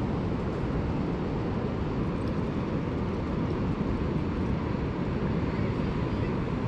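A steady low rush of wind buffeting the microphone, mixed with the distant roar of ocean surf.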